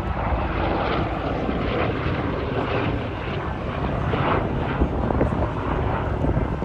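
Boeing B-29 Superfortress flying past, the steady drone of its four radial piston engines and propellers.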